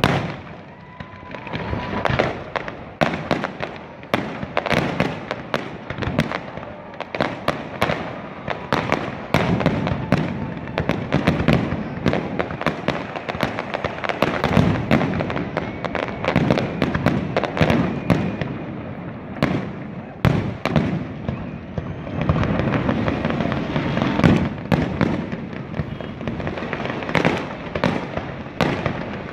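Fireworks display: a dense run of aerial shells bursting, with rapid crackling and popping, the bangs coming several a second and overlapping, with a low rumble beneath.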